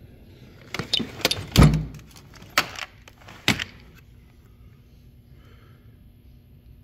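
Metal toolbox drawer full of cutting tools being moved: a run of sharp clinks and knocks over about three seconds, the loudest a heavy clunk about a second and a half in.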